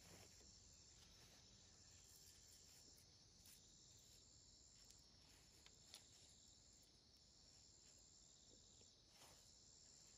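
Near silence: a faint, steady, high-pitched insect drone, with a few soft clicks.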